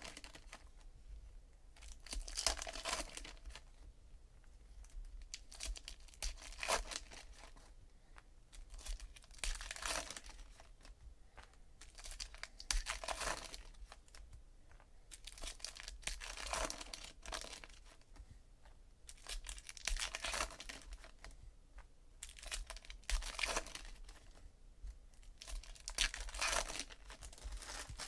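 Foil wrappers of Donruss Optic baseball card packs being torn open and crinkled by hand, one pack about every three to four seconds.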